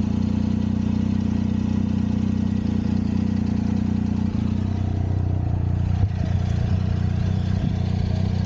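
Triumph Tiger adventure motorcycle's three-cylinder engine idling steadily while the bike stands still, with a few faint clicks.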